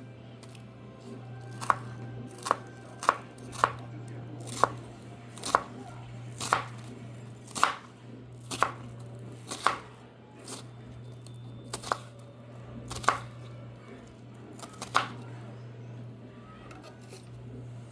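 A kitchen knife chopping vegetables on a cutting board: a string of separate, irregular strokes about every half second to a second, starting a couple of seconds in and stopping a few seconds before the end.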